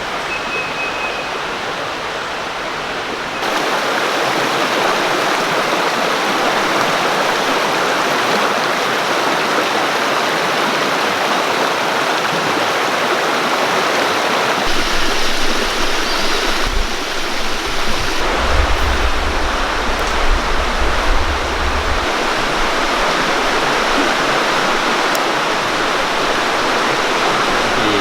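Creek water rushing over rocks in a shallow riffle, a steady dense wash that gets louder about three seconds in. A low rumble joins it for several seconds past the middle.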